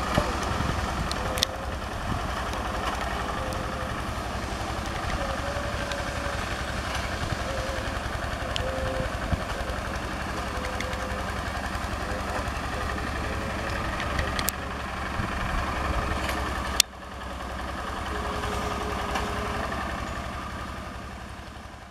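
Single-cylinder diesel engine of a two-wheel walking tractor chugging steadily under load as it works a wet paddy field. A sharp click comes about 17 seconds in, after which the low rumble is quieter.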